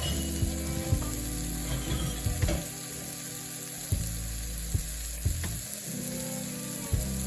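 Food sizzling as it fries in a pan, with a scatter of sharp knocks, over steady background music.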